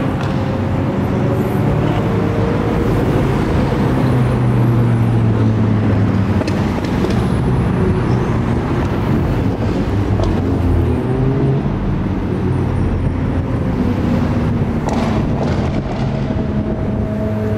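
A procession of supercars, among them Ferraris, Lamborghinis, a Porsche 911 Turbo and Mercedes-AMGs, driving past one after another at a steady pace. Their engines make a loud, continuous mixed drone with no single car standing out.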